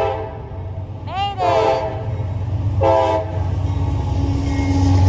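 Air horn of CSX CM44AC diesel locomotive 7252 sounding in separate blasts: one ending right at the start, a longer one about a second in that bends in pitch as it opens, and a short one near three seconds. Under the horn, the low rumble of the approaching train grows louder toward the end.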